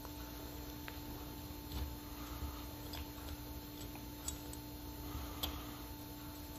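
A few faint, light clicks about a second apart from small carburetor parts being handled as the float and its pin are fitted, over a steady hum.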